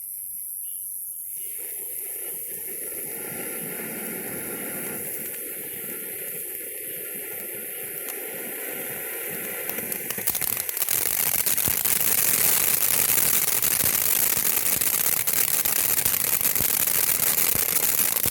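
Phantom Fireworks Breakaway Fountain burning: a steady hiss of spraying sparks begins about a second and a half in. About ten seconds in it gets louder and turns into dense crackling, the fountain's crackle effect, then stops abruptly at the end.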